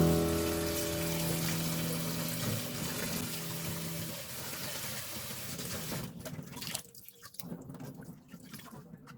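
Water running steadily for about six seconds, then thinning to scattered splashes and drips. Held notes of background music fade out under it in the first few seconds.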